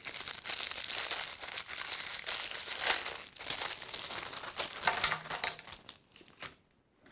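Crinkling and rustling of a thin white paper wrapper being unfolded and pulled off a small plastic toy part, in quick irregular crackles that stop about six seconds in.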